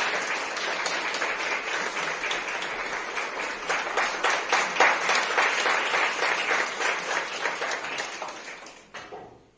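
Audience applauding steadily, the clapping dying away in the last second or so.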